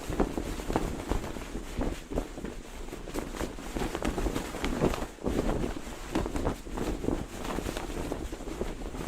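A cloth flag flapping and snapping in strong wind, in quick irregular flutters, with wind buffeting the microphone.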